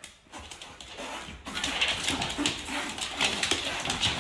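Dogs whimpering while they scuffle with a cat, with a steady noisy hiss underneath from about a second and a half in.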